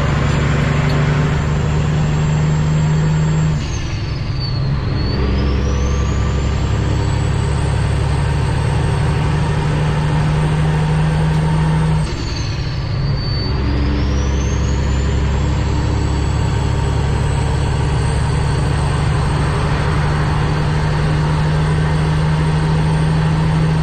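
Cummins ISX diesel of a 2008 Kenworth W900L heard from inside the cab, pulling hard up through the gears. The engine note drops out twice, about four seconds in and again about twelve seconds in, as gears are changed. A high whine sinks at each shift and climbs back as the engine takes up the load.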